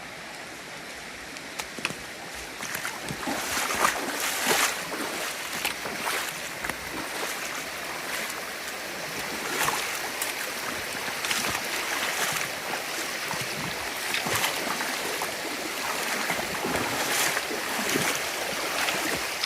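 Rushing stream water, growing louder a few seconds in, with irregular splashes of feet wading through the shallow creek crossing.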